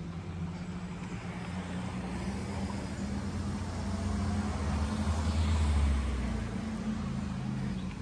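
Road traffic: a car's engine and tyres passing close by, swelling to a peak about five to six seconds in and then fading.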